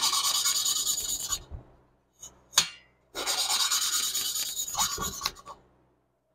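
Valve being hand-lapped against its seat in a Porsche 912E Type 4 cylinder head: the suction-cup lapping stick is spun back and forth between the palms, grinding the valve face on the seat through lapping compound in a rapid, gritty rasp. Two spells of rasping, the second longer, with a single sharp click between them.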